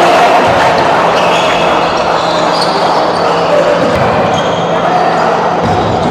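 Indoor volleyball rally: the ball thuds off players' hands and arms a few times and shoes squeak briefly on the court, over a steady din of voices echoing in a large gym hall.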